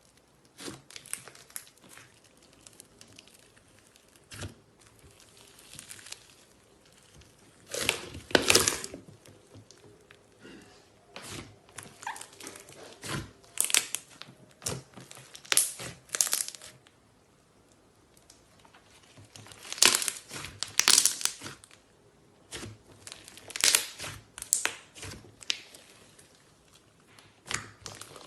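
Slime squeezed and crushed by hand, giving irregular bursts of crackling and popping, with short pauses between squeezes.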